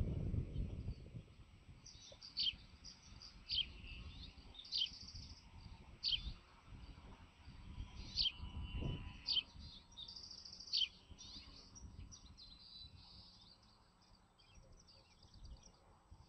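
A series of short, high, downward-sliding bird chirps, roughly one a second, over a faint low rumbling noise that is strongest in the first second.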